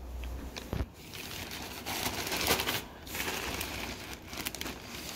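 Plastic poly mailer bag crinkling and rustling as it is handled and squeezed in the hands. The crackling is uneven, growing louder in the middle as the bag is gripped.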